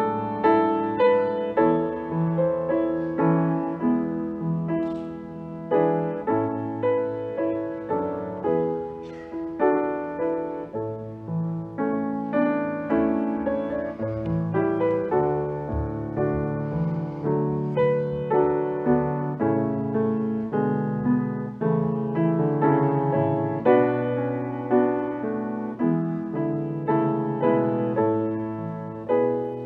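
Piano playing a slow piece, each chord struck and left to fade before the next.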